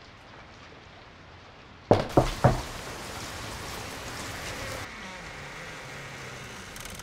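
Steady rain hiss, broken about two seconds in by three loud sharp bangs in quick succession, a third of a second apart. The bangs are followed by a louder noisy rumble with a faint wavering tone, which drops back a little before the end.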